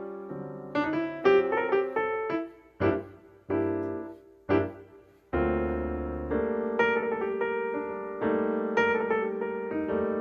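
Background piano music: struck notes and chords that ring and fade, with a few short detached chords in the middle and a held low chord about five seconds in.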